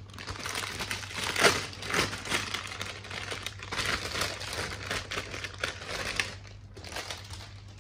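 Clear plastic bags around model-kit runners crinkling as they are picked up and shuffled, a dense crackling that eases off near the end.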